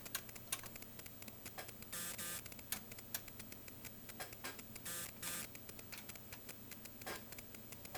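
Rapid, uneven clicking from test-bench controls being worked as the input signal is set to 6 volts, over a low steady electrical hum from the equipment.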